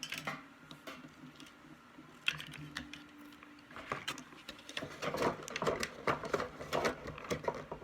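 Hands handling small plastic toys and packaging: a rapid run of small clicks and taps, busiest in the second half, with a single sharper click about two seconds in.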